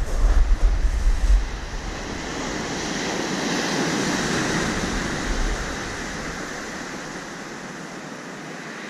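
Surf on a shingle beach: a wave breaks and washes up the gravel, swelling about three to five seconds in and then fading. Low buffeting rumbles hit the microphone during the first second and a half and again briefly around five seconds in.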